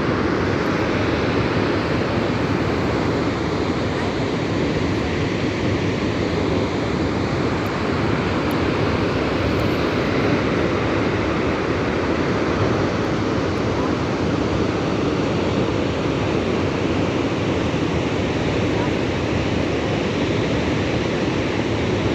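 Vøringsfossen waterfall: the steady rush of a large mass of falling water, an even, unbroken noise that holds the same level throughout.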